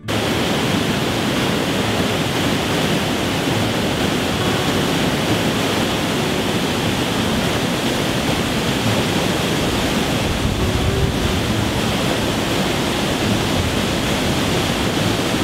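River rapids and a small waterfall rushing over rocks below, a loud, steady rush of white water.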